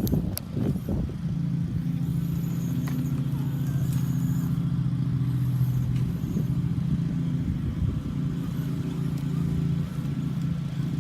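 Simulated engine idle from the Traxxas Slash RC truck's onboard engine sound-effects speaker: a steady, low, even hum with little change in pitch.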